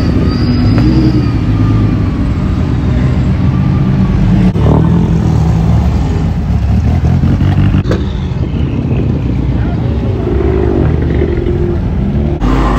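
Performance car exhausts revving and accelerating as cars pull away one after another, in short takes broken by sudden cuts.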